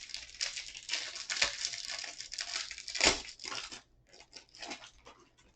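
Plastic trading-card pack wrapper crinkling and tearing as a hanger-box pack is opened by hand, with one sharp rip about three seconds in, then a few scattered crackles as the handling slows.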